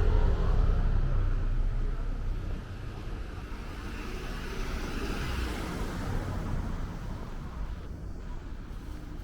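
A motor vehicle passing close by on a city street, its low rumble fading away over the first few seconds, then steady street traffic noise.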